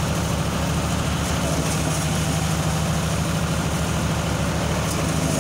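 John Deere 5310 tractor's three-cylinder diesel engine running steadily under load, driving a paddy thresher that is being fed with rice bundles. A constant low drone with an even, fast beat.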